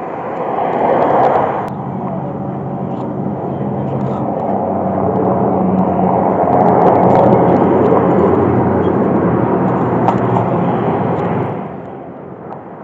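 A motor vehicle driving past, its engine hum and tyre hiss building to a peak and then falling away near the end.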